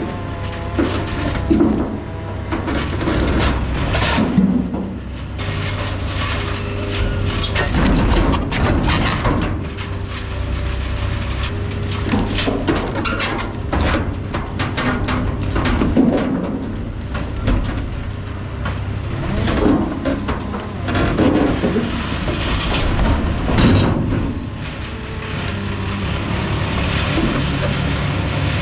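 Skid steer's diesel engine running under load with its hydraulics whining on and off while it handles heavy logs, with repeated knocks and crackles of wood against wood and metal.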